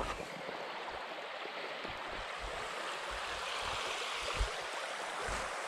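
A small river flowing steadily over stones, an even rushing of water, with a few soft thumps.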